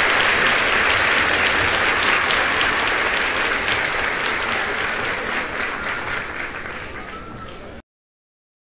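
Crowd applause, a dense patter of many hands clapping, fading gradually and then cutting off to silence near the end.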